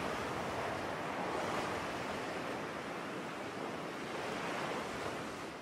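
Sea surf washing steadily onto a beach, easing slightly near the end.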